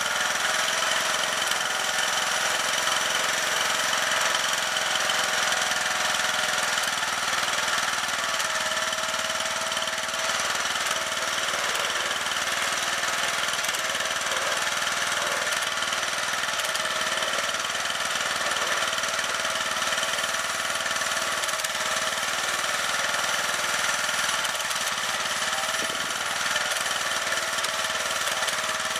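Snapper LT11 riding lawn tractor's small gasoline engine running steadily at a constant speed.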